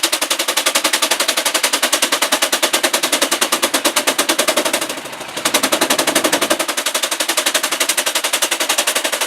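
Half-scale Case steam traction engine belted to a sawmill, its exhaust chuffing fast and evenly at about nine beats a second. The beat eases and drops in level briefly about five seconds in, then picks up again.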